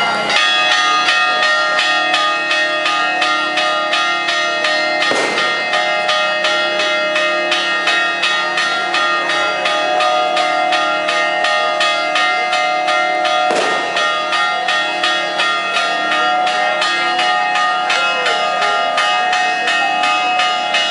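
Church bells pealing rapidly, a fast, even run of strokes with the tones ringing on over one another, and two heavier strokes about five and thirteen seconds in.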